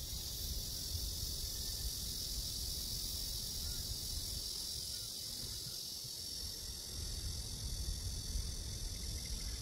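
Steady high-pitched chirring of insects over a low rumble.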